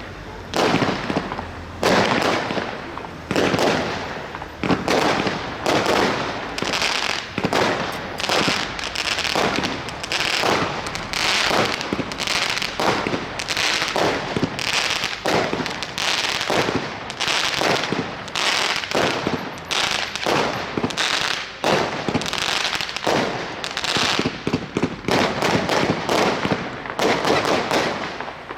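Consumer firework battery firing a long, rapid series of launches and bursts, each a sharp bang, with crackling and hissing stars between them.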